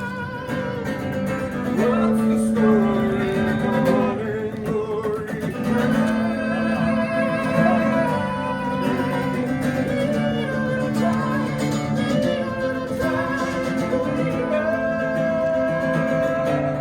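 Music with acoustic guitar, Latin-tinged, with long held melody notes over a steady bass line.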